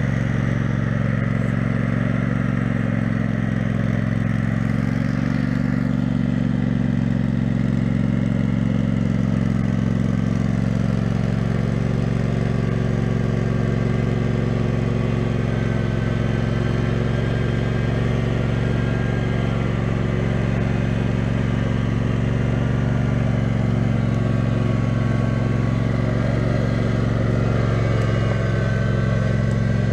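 Engine of a homemade 6x4 off-road lawn tractor running steadily under way, its pitch shifting only a little.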